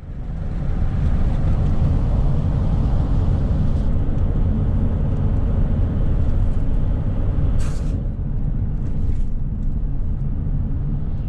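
Steady low road and engine rumble of a vehicle driving at highway speed, heard from on board. A brief hiss comes about two-thirds of the way through.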